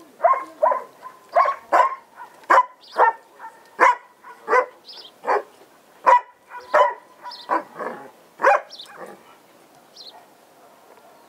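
A dog barking repeatedly, about fifteen barks spaced half a second to a second apart, stopping near the end.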